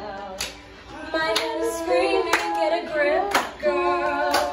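A woman singing a pop love song over music, with sharp hand claps about once a second on the beat.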